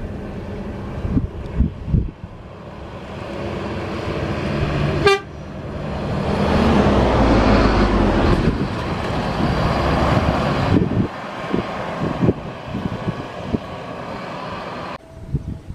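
Jet airliner's engines passing close: a broad rumbling roar that swells to its loudest partway through and then slowly fades. A short sharp blip about five seconds in, just before the swell.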